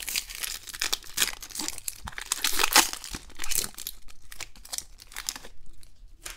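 Plastic foil wrapper of a Topps baseball card pack being torn open and crinkled by hand. The crackling dies down about five seconds in.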